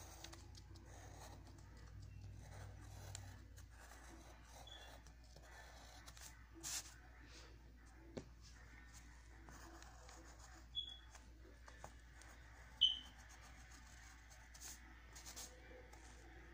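Faint scratching of a graphite pencil drawing on lined notebook paper, with a handful of short sharp ticks scattered through it, the loudest about three-quarters of the way in.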